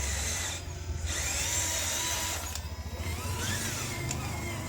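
Small electric motor and gears of a radio-controlled toy tractor whirring, its whine rising and falling in pitch as it speeds up and slows.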